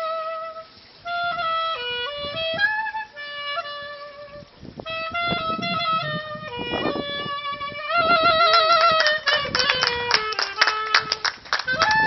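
Solo clarinet playing a slow melody of held notes, pausing briefly twice. In the last few seconds many sharp clicks and knocks come over the notes.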